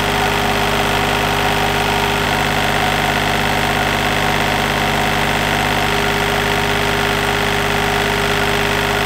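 Small inboard marine diesel engine idling steadily, running on its own again after its fuel filters were changed and the air bled from the fuel system with the feed pump.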